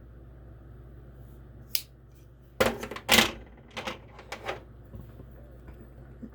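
Folding pocket knives being handled: a sharp click about two seconds in, then a cluster of louder clacks and a few lighter knocks as the metal knives are moved and set down.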